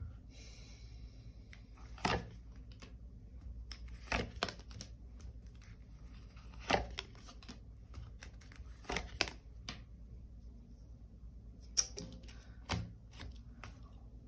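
Tarot cards being handled on a table: a string of sharp card snaps and slaps with light rustling, about eight in all, spaced a second or two apart.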